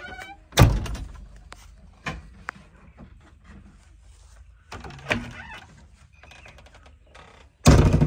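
Steel-framed glass cab door of a JCB 3DX backhoe loader being shut and latched: a heavy thunk about half a second in, a few small clicks, another thunk about five seconds in and a loud thud near the end.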